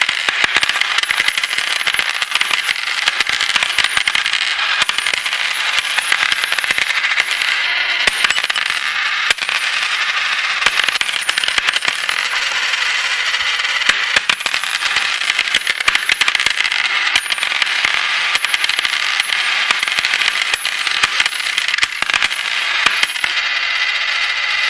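Coins jingling and clinking in a dense, continuous stream of fine metallic clicks, as of many coins being poured or shaken together. It starts and stops abruptly.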